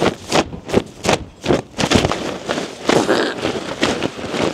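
Nylon tent fly being shaken out, its fabric giving a quick irregular run of sharp flaps and snaps, about two or three a second, to knock off springtails clinging to it.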